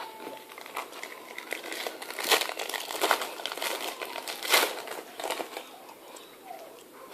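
Trading card pack wrapper crinkling and tearing as a pack is opened, a run of sharp crackles, loudest twice, about two and four and a half seconds in.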